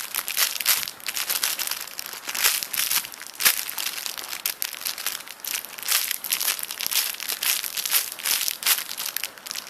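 Plastic crinkling and crackling as it is handled in the hands, a dense run of rapid crackles that stops just before the end.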